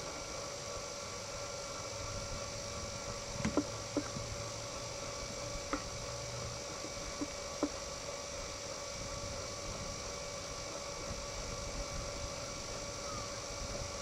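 Steady background hum and hiss, with a few faint, irregularly spaced knocks.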